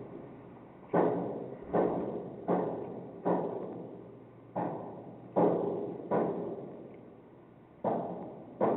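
Heavy banging from basement pipe repair work: nine loud blows at an uneven pace of about one a second, with a pause near the end, each dying away with a long ring.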